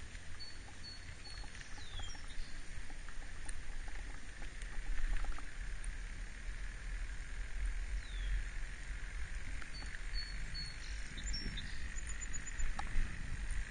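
Wind buffeting a helmet-mounted camera's microphone, with low rumble as a recumbent trike rolls along a paved path. A few short, high chirps come near the start and again about ten seconds in.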